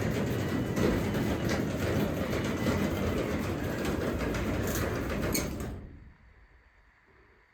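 Craftsman 3/4 hp DC belt-drive garage door opener raising the garage door: a steady rumble and rattle, with the door itself louder than the opener. It stops about six seconds in as the door reaches fully open.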